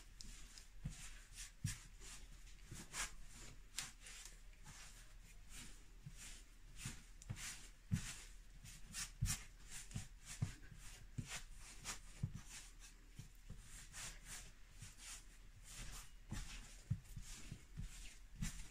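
Hands kneading soft flatbread dough on a floured worktop: irregular soft thumps and pats, with rubbing and scuffing between them.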